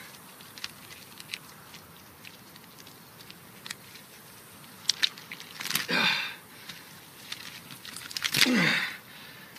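Small wet clicks and squelches as bloody hands handle flesh, then a man's strained, breathy sobbing groan about halfway through and another near the end, each falling in pitch.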